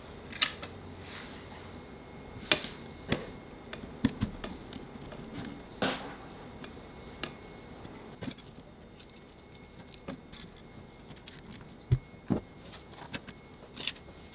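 Scattered light clicks and taps of small hard parts being handled, irregular and a dozen or so in all, the sharpest about two and a half seconds and twelve seconds in, over a faint steady high whine.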